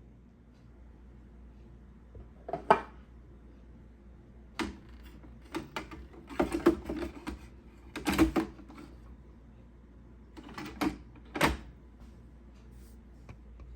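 Plastic parts of a Keurig coffee maker knocking and clicking as they are handled and fitted back together during reassembly: a string of separate sharp knocks and clatters, the loudest about three seconds in.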